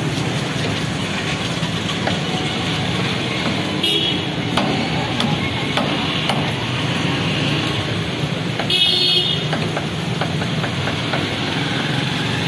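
Steady street-traffic din with a vehicle horn sounding twice, briefly about 4 s in and longer about 9 s in. Through it come scattered light knocks and scrapes of a large knife scaling a fish on a wooden chopping block.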